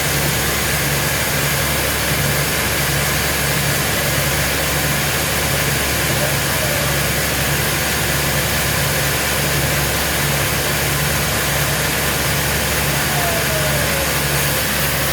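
Sawmill machinery running steadily with a constant mechanical noise and a regular low throb about twice a second.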